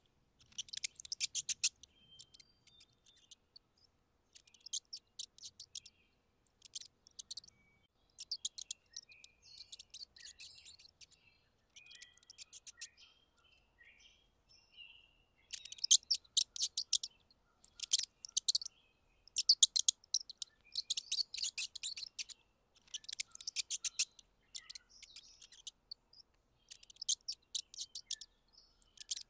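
Mouse squeaks: quick high-pitched trains of chirps in bursts of about a second with short gaps, faint through the first half and louder from about halfway in.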